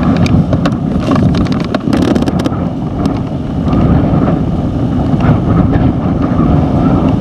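Loud, steady low rumble with scattered clicks and knocks.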